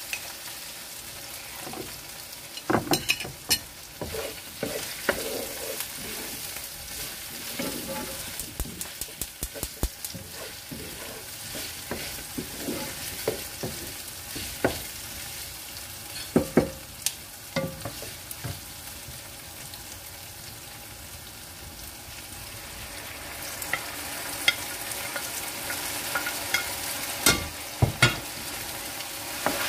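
Chunks of vegetables and chicken sizzling in a large pot while being stirred with a wooden spatula, which knocks and scrapes against the pot in clusters of sharp clacks. The sizzle gets louder over the last few seconds.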